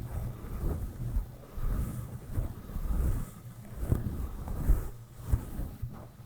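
Soft brush stroked over a microphone, giving a muffled, low rustling rumble that swells with each stroke, about one or two strokes a second.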